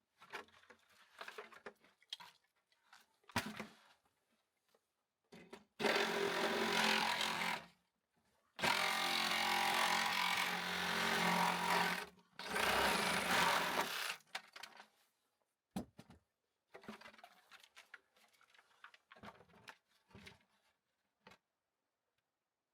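A power tool runs in three bursts of a few seconds each, with short knocks and rattles of handling before and after.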